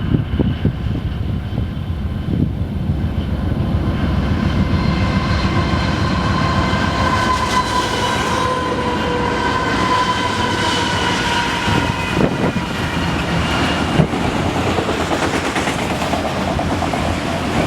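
A train passing, with a steady heavy rumble and a long, high squeal that runs through the middle.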